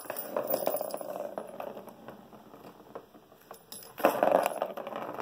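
Plastic ball rolling and rattling around the circular plastic track of a cat scratcher toy, pushed by hand. It comes in two spells, the second and louder one starting about four seconds in.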